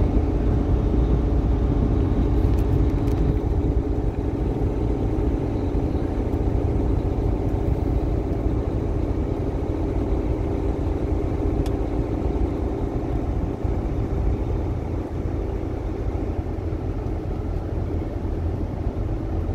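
Semi-truck diesel engine running steadily with a low road rumble, heard inside the cab while driving.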